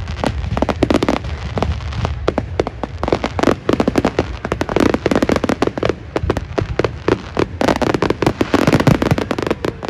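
Aerial fireworks display: many shells bursting in quick succession, a dense, unbroken run of bangs and crackles.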